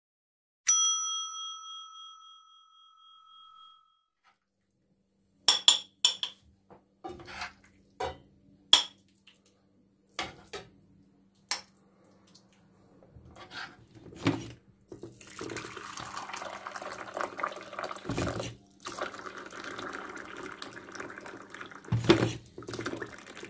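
A single bell-chime ding from a subscribe-button sound effect, ringing out over a few seconds. Then a metal spoon clinks and scrapes against a frying pan and plate as food is served. Later comes a steady splashing pour of hot water from an electric airpot into a cup, with a few knocks of crockery.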